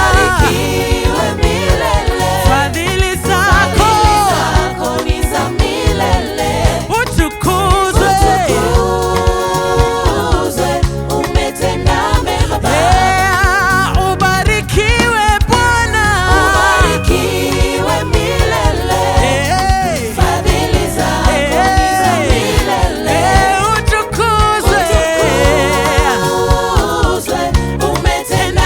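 Live gospel praise-and-worship music: singing voices over a full band, continuing without a break.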